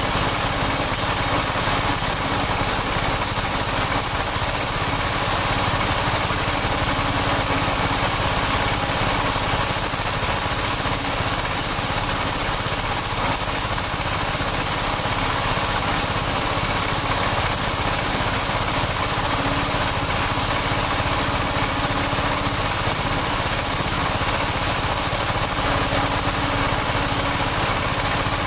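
Small single-cylinder snowblower engine running steadily at an even speed.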